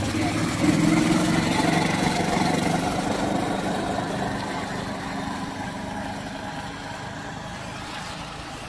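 Small gasoline golf cart engine running steadily as the cart pulls away, its drone fading over several seconds as it drives off.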